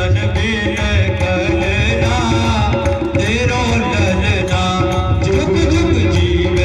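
Music with a wavering melodic voice or instrument over a steady percussion beat.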